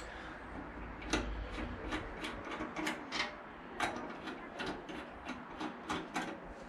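Hand tool unscrewing the fuel-tank mounting bolts on a Honda VFR800: a run of light, irregular clicks, about two or three a second, over faint rubbing.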